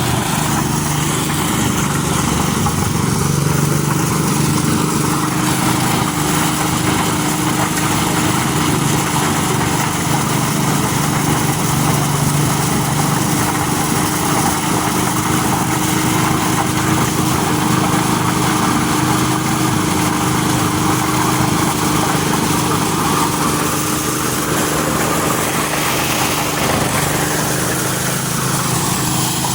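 Motorized corn sheller running steadily: an engine hum at a constant pitch under a dense, even noise.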